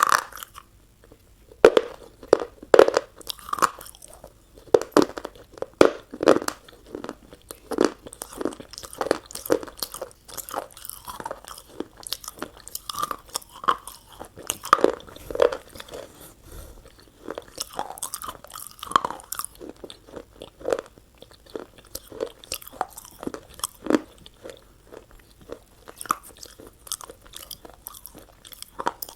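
Close-miked eating: a person biting and chewing crunchy fast food, a dense, irregular run of sharp crunches and mouth clicks.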